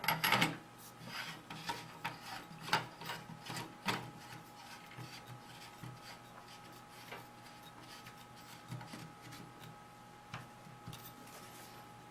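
Paintball marker barrel being screwed back into a Tippmann A5 body: light scraping and rubbing with scattered clicks, busiest in the first four seconds, then fainter and sparser handling.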